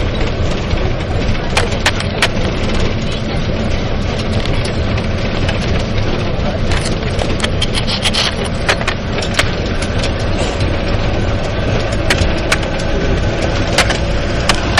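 Inside a bus cabin: a steady low rumble from the bus, with frequent sharp rattles and clicks scattered throughout.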